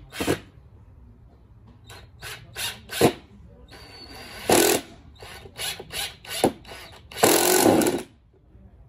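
Power drill working down into a pine board, run in short trigger bursts with a louder, longer run about seven seconds in.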